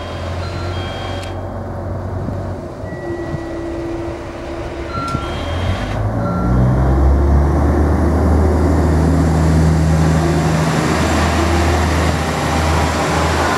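KiHa 11 diesel railcar idling at the platform, with a few short electronic beeps, then its diesel engine revs up about six seconds in and runs loud and steady under power as the railcar pulls away.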